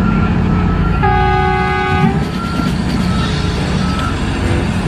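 Heavy mining machinery running with a steady low diesel drone as the excavator loads the haul truck. About a second in, a horn sounds once for about a second, and short high warning beeps repeat on and off around it.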